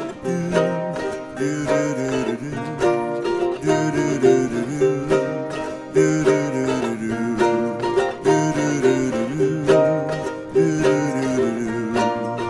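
Background music: a song led by plucked strings, playing a steady strummed rhythm.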